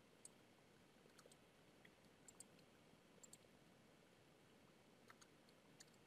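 Near silence with faint, scattered computer mouse clicks, about a dozen, some in quick pairs.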